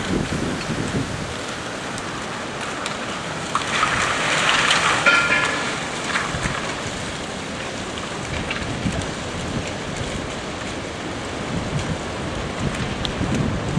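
Storm wind and rain from Hurricane Sandy: a steady rushing noise with wind buffeting the microphone. It swells between about four and six seconds in, where a brief higher-pitched tone rises out of it.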